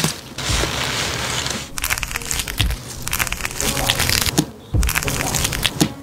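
Crisp rustling and crackling of fresh green onions being handled, with many small snaps and crunches.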